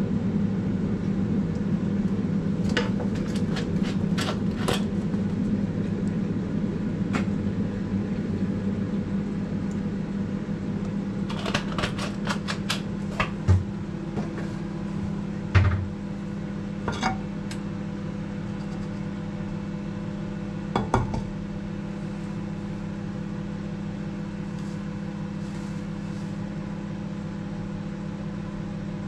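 Steady electric hum of a kitchen appliance, with scattered light clicks and a few dull knocks of a frying pan being shifted on an electric hotplate.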